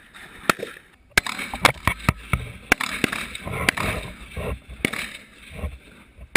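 Rifle gunfire: a string of single sharp shots at irregular intervals of roughly one a second, over a low rumble of background noise.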